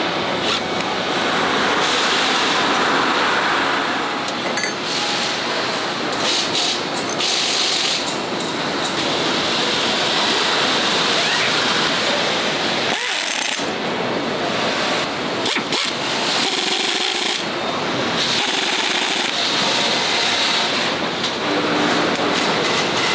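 Assembly-line factory noise with a cordless power driver running in short bursts as bolts are driven into a tractor's engine and transmission.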